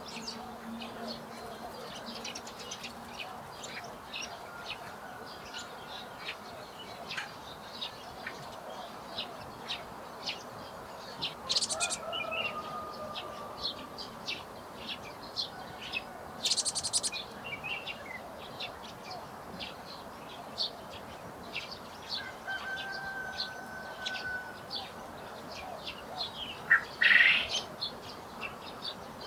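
Small songbirds chirping: many short, high calls in quick succession, with a few louder bursts of song near the middle and again near the end.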